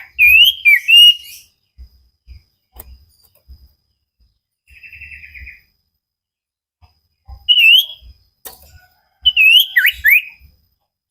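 Cipoh (common iora) singing loud, sweeping whistled phrases in three bursts, with a short rapid trill about five seconds in. Faint low thumps sound underneath.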